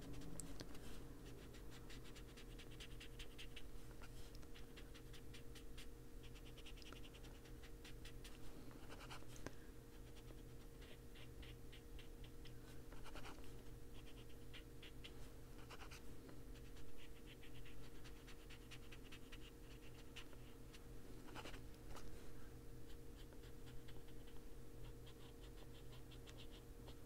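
Foam-tipped detail blending tool rubbed in quick small strokes over paper, giving runs of soft, rapid scratchy rubbing a few seconds long, with a few light knocks. A steady low hum runs underneath.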